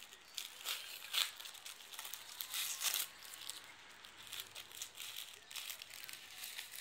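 Crinkling and rustling of the thin plastic film wrapper of a convenience-store rice ball as it is pulled open and peeled off by hand. The crackling comes in irregular bursts, loudest about a second in and again around the three-second mark.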